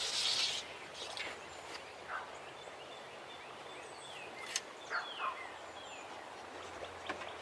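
Wild birds calling outdoors: a brief loud rattling call right at the start, then scattered short chirps and several quick falling whistles a few seconds in.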